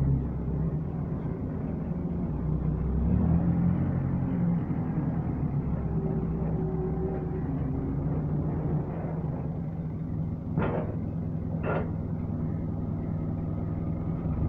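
Forklift engine running steadily as the forklift is driven about, picking up for a moment about three seconds in. About ten seconds in come two short, higher noises about a second apart.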